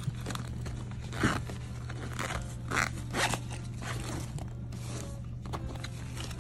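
Hands handling an insulated cooling backpack on its plastic wrapping: plastic crinkling and the bag's zipper being worked, in a few short rustles, the loudest about a second in and twice around three seconds in, over a steady low hum.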